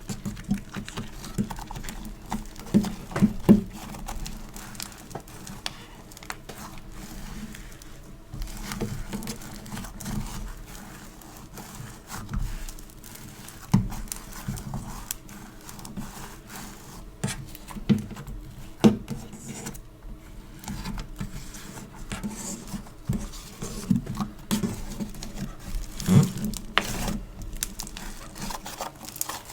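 Hands squishing and pulling sticky store-bought foam clay and slime: a continuous run of irregular soft crackles and sticky clicks, with a few louder pops along the way.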